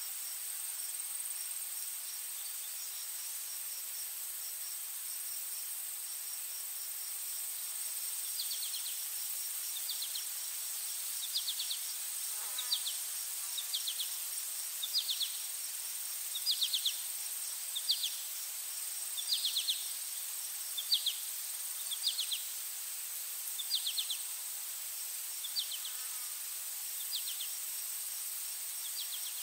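Insects chirping: a steady high-pitched buzz with faint fast ticking. From about eight seconds in, short chirps of a few quick pulses repeat roughly every second and a half.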